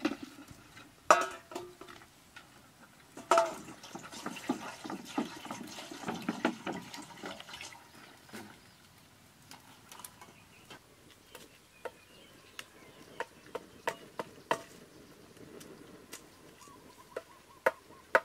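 Water poured into and sloshed around in a metal wok as food is washed by hand, with two sharp metal clanks about one and three seconds in. In the second half the water sound fades and only scattered light clicks and taps of utensils remain.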